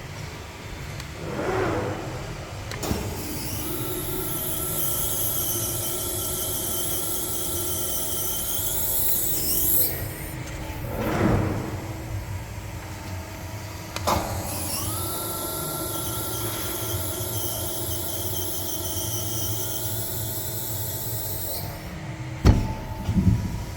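Beyeler CNC hydraulic press brake running with a steady hum. A high hissing whine comes on twice, each time for several seconds, and sharp clunks start and stop each run.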